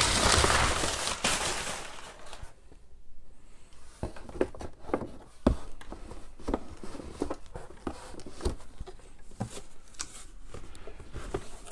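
Crumpled brown kraft packing paper crinkling for about the first two seconds as it is pulled out of a cardboard shipping box, then scattered soft rustles, scrapes and taps of hands working inside the box.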